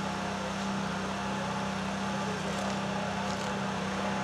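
Fire engine idling: a steady engine hum with a constant low tone that does not change.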